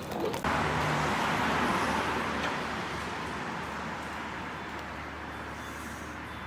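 A car driving on the road: a steady low engine hum under tyre and road noise, with a rush of noise that comes in sharply about half a second in and slowly fades.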